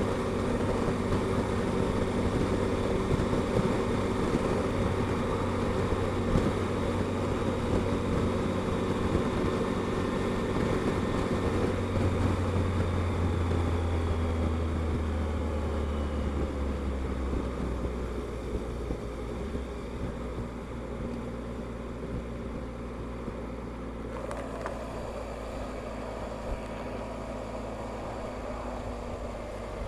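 Motorcycle engine running at road speed under wind and road noise. About halfway through, the engine note drops and the sound grows quieter as the bike slows.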